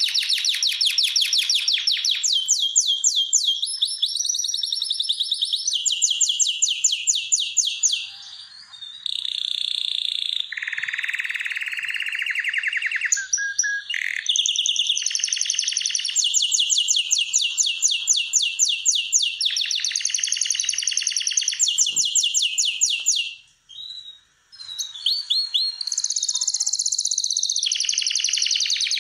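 Male domestic canary singing in breeding condition: a long song of rapid trills, each phrase a fast run of repeated notes at a different pitch, switching from high to lower rolls and back. There are short breaks about eight seconds in and again near twenty-four seconds.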